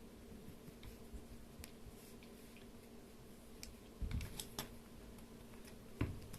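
Scattered light clicks and taps, with a few louder knocks about four seconds in and one sharp knock near the end, over a faint steady hum.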